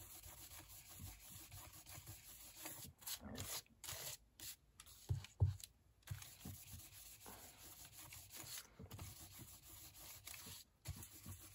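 Sponge dauber rubbing ink along the edges of embossed cardstock: a faint, soft scuffing, with a couple of dull taps about five seconds in.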